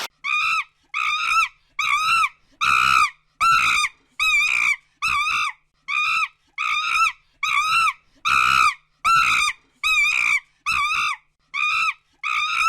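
An animal calling over and over: about twenty short, high-pitched calls in a steady rhythm, nearly two a second, each rising and falling in pitch.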